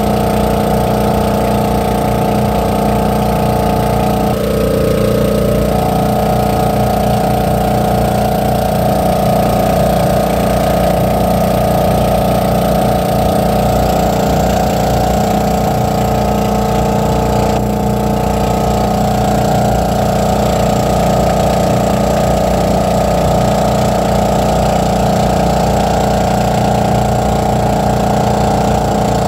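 The engine of a motorized outrigger boat (bangka) running steadily at cruising speed, with water spray hissing along the hull.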